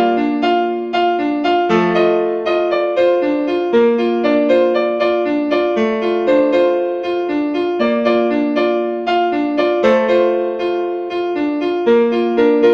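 Background music on piano-like keyboard: a quick, repeating run of notes over a bass note that changes about every two seconds.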